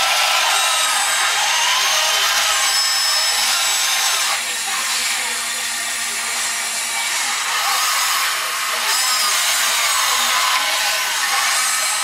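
Small electric motors and gearboxes of radio-controlled scale models whining: the cable backhoe swinging its boom and working its cables, and a dump truck driving, several whines at once with their pitch rising and falling.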